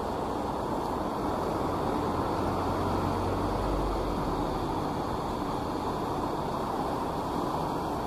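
Fast-flowing river rushing over shallow rapids, a steady even rushing noise. A low rumble swells briefly in the middle.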